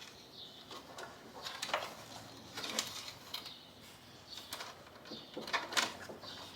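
Hands handling small parts: irregular light clicks and rubbing scrapes, with louder ones about two and three seconds in and near the end.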